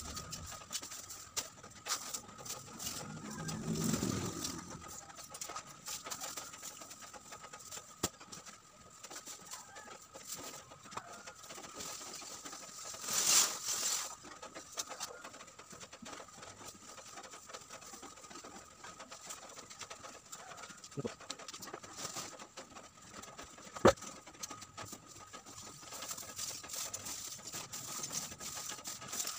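Lump charcoal clinking and rattling as it is scooped by hand into rustling plastic bags, in scattered small clicks and knocks. About 13 seconds in, a louder rush of charcoal pours out of an upended sack onto the pile, and there is a single sharp knock near the end.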